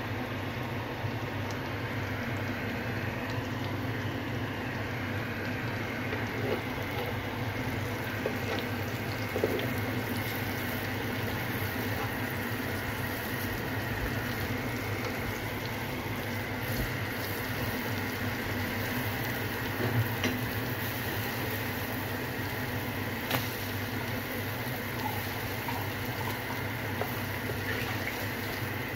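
Eggs cooking in a pan on the stove: a steady hiss with a few light clicks.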